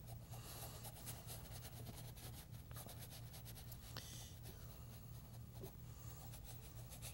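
Faint scratching of a stiff bristle brush scrubbing acrylic paint across stretched canvas in many short strokes, over a low steady hum.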